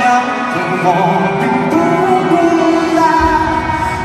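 Live pop ballad played by a band at a concert, with sustained melody lines; a deep bass comes in about three seconds in.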